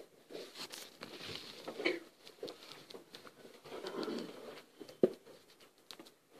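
Quiet room with scattered faint rustling and small knocks from seated people moving, and one sharper tap about five seconds in.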